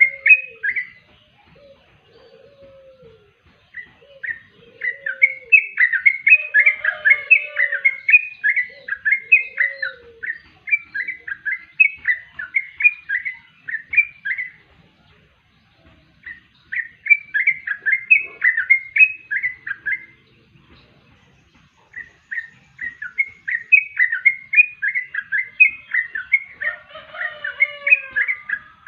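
Yellow-vented bulbul (trucuk) singing in the rapid, run-on 'konslet' style: bouts of quick, bubbly chattering notes several seconds long, separated by short pauses.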